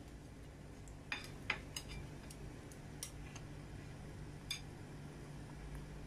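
Bread squares frying quietly in a pan: a handful of sharp ticks and clicks over a low steady hum, the two loudest a little past one second in and a few fainter ones later.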